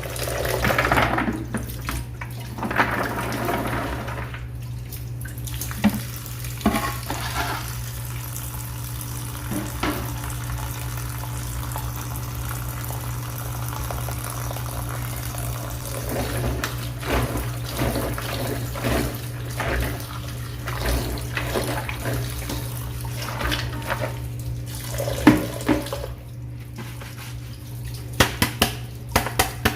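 Water running steadily from a tap into a sink or basin, with scattered sharp clacks of things being handled in the water, a few louder ones near the end.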